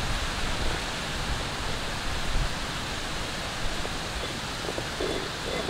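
Steady outdoor background noise: an even hiss with an irregular low rumble underneath.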